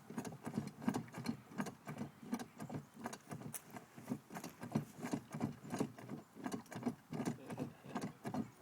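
A bulldozer ride rattling and clunking, with irregular knocks several times a second.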